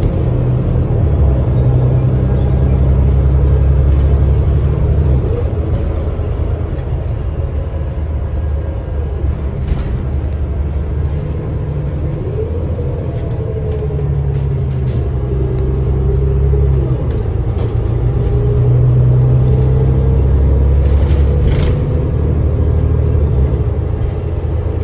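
Inside a New Flyer XD40 diesel city bus under way: a steady low engine and road rumble, with a whine that rises and falls as the bus speeds up and slows. The rumble swells twice, in the first few seconds and again past the middle.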